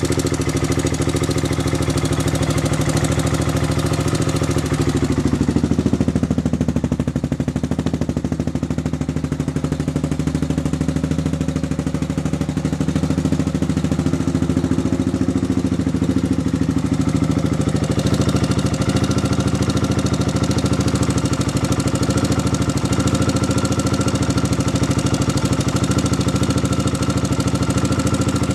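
Air-cooled ATV engine idling steadily, run before its valve clearances are adjusted.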